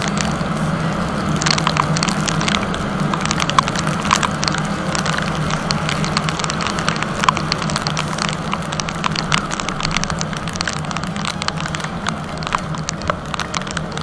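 Yamaha R15 V3's single-cylinder engine running steadily under way on a wet road, with wind noise and many sharp ticks of raindrops hitting the helmet camera.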